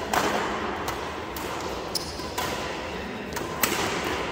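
Badminton rackets striking a shuttlecock in a doubles rally: a run of sharp hits, roughly every half second to a second, over steady background noise.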